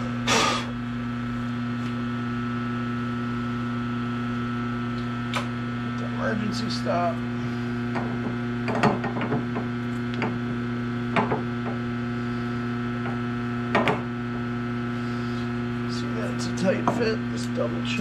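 Steady electrical mains hum, with scattered light clicks and knocks of metal parts being handled on a lathe. The strongest knock comes just after the start.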